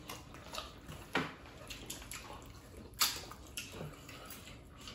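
Quiet eating-by-hand sounds: a few short wet smacks and clicks from chewing and from fingers working soft amala and slimy okra soup, the sharpest about three seconds in.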